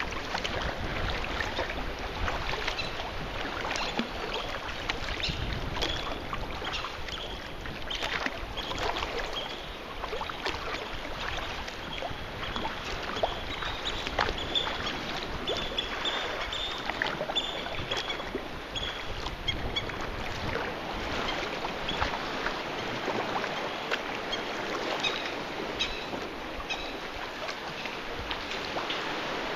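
Sea kayak being paddled: paddle blades dipping, with water splashing and dripping around the hull over a steady wash of water and wind on the microphone.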